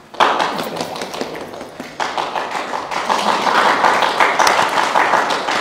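Applause: a group of people clapping, starting abruptly and growing louder in the second half.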